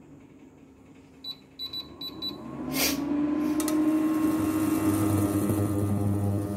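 Induction cooktop being switched on: several short beeps from its control panel, then a brief click, then its cooling fan spins up into a steady whirr with a low electrical hum as it starts heating the pan.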